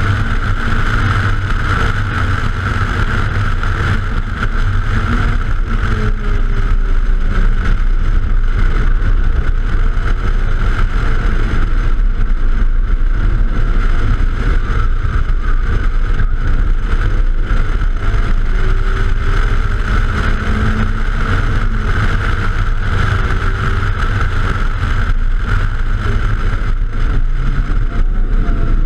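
Hatchback being raced around a road course, heard on a microphone mounted outside the car: a steady heavy wind rumble, with the engine note faintly rising and falling underneath as the driver works through the corners.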